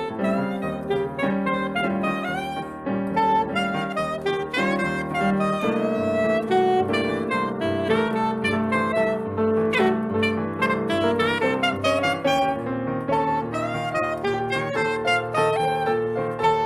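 Tenor-range saxophone playing a busy melodic line in a live Brazilian jazz performance, backed by a band with a moving bass line, piano and drums.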